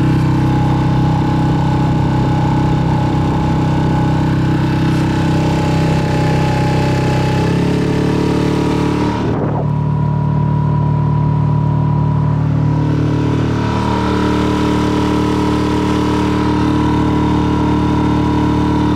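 Boat outboard motor running steadily under way, its engine pitch shifting a couple of times partway through.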